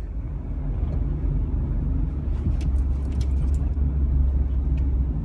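Car cabin noise while driving: a steady low rumble of engine and tyres, picked up inside the car, growing a little louder about halfway through.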